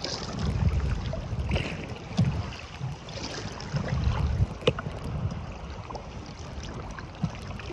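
Strong wind buffeting the microphone in gusts, with choppy waves slapping and splashing against a kayak's hull and a sharp slap of water about two-thirds of the way through.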